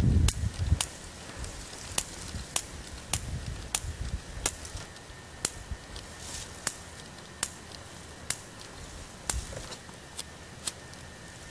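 Long-nose utility lighter's igniter clicking again and again, sharp single clicks at uneven intervals of about half a second to a second. A low rumble comes and goes underneath.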